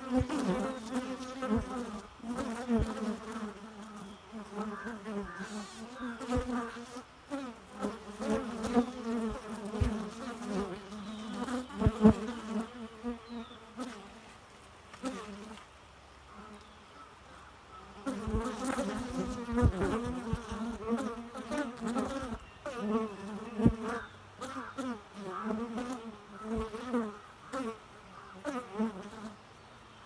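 Honeybees buzzing as they fly close past a wooden hive entrance. The buzz wavers and swells as single bees come and go, drops away for a few seconds about halfway through, then returns. Scattered short clicks run through it.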